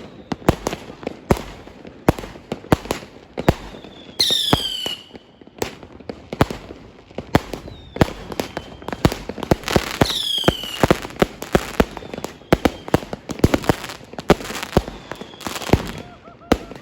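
Fireworks going off in a rapid, irregular string of sharp bangs and cracks. Twice a loud whistle falls in pitch, about four seconds in and again about ten seconds in.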